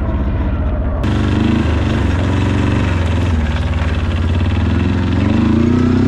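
Arctic Cat diesel ATV engine running as the quad is ridden. The sound changes abruptly about a second in, and the engine's pitch rises near the end as it revs up.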